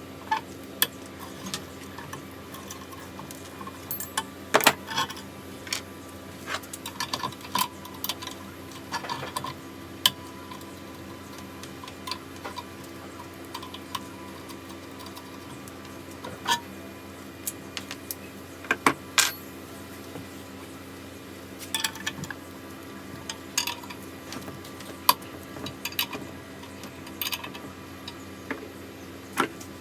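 Metal parts and hand tools clinking and clattering in scattered, irregular knocks, some briefly ringing, over a steady low hum.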